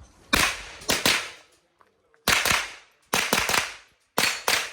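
Rapid .22 rimfire rifle shots fired in quick groups of two or three, about nine shots in all, with short pauses between the groups.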